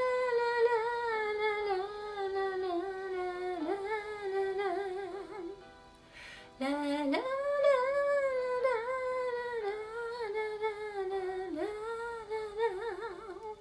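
A woman singing a wordless melody in two long phrases. Each phrase opens with an upward slide into a held note that drifts slowly down and ends in a wavering vibrato, with a short breath between them about halfway through.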